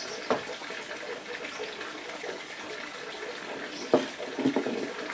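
A plastic cable tie handled and pulled around a bonsai's roots and rock: a few sharp plastic clicks, the loudest about four seconds in with a short run of smaller ones after it, over a steady rushing background noise.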